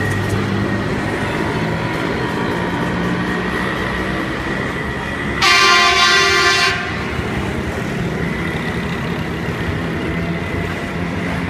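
Steady engine and street-traffic noise beside a railway track as a rail track machine runs off along it; about five seconds in, a loud horn sounds once for about a second and a half.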